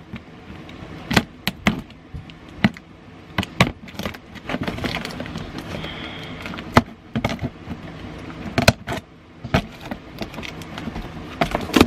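Clear plastic packing tape being picked at with the fingernails and peeled off a cardboard box, making irregular crackles and sharp snaps over a rough tearing rasp.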